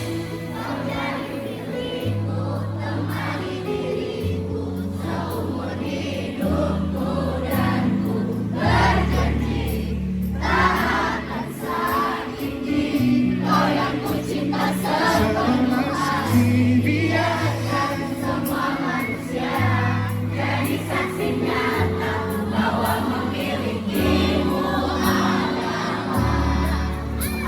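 A live band playing a pop ballad while a large audience sings along together.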